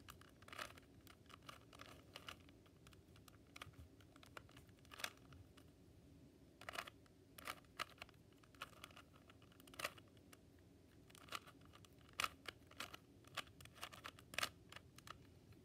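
Rubik's Cube faces being turned by hand: faint, irregular plastic clicks, some in quick little clusters, as a move sequence for the last-layer corners is repeated.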